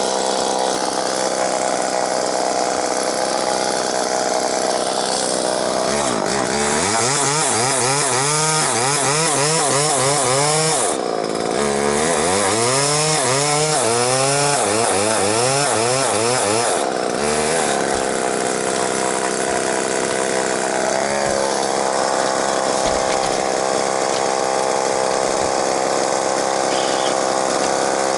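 Two-stroke chainsaw running hard and cutting wood. Its engine pitch wavers up and down through two long stretches of cutting, with a short break between them.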